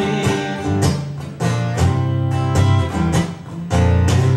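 Acoustic guitar strummed in chords, a steady strumming rhythm with no voice over it.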